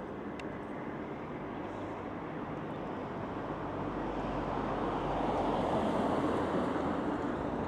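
Steady rumbling background noise with no clear tone, swelling a little about five seconds in.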